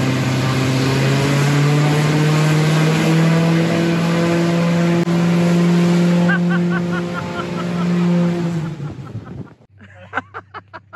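Bush plane's piston engine and propeller running at high power in a static thrust test, pulling against a strap tied to a pickup truck. It is a loud, steady hum whose pitch climbs slightly in the first couple of seconds, then sags after about eight seconds and cuts out. Short bursts of voices follow near the end.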